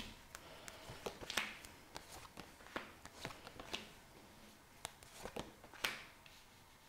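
Tarot cards being drawn from the deck and laid down on a cloth-covered table: faint, irregular clicks and soft slides of card on card, the sharpest about a second and a half in and again near the end.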